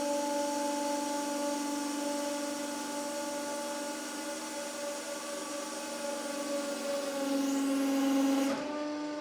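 A 150-ton hydraulic press's pump and motor running with a steady whine. About seven seconds in, the tone drops slightly and grows louder as the press loads against a large roll of string, then eases back near the end. The roll does not burst.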